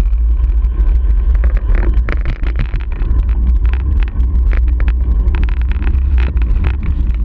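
Wind buffeting a bicycle-mounted camera's microphone while riding downhill at speed: a loud, steady low rumble with frequent short clicks and rattles.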